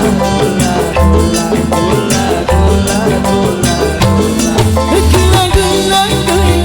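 Dangdut band music with a steady beat, a strong bass line and a melody line running over it.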